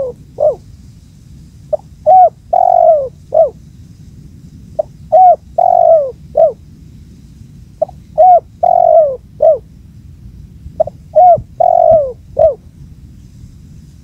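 Spotted dove (tekukur) singing close by: a four-note coo phrase (a short note, a rising-and-falling coo, a longer falling coo, a short closing note) repeated about every three seconds, four times.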